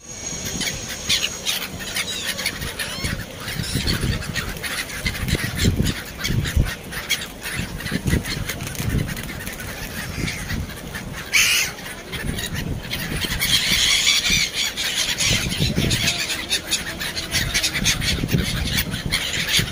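Black-headed gulls calling over and over in harsh, honking cries, with the calls thickest about two-thirds of the way through.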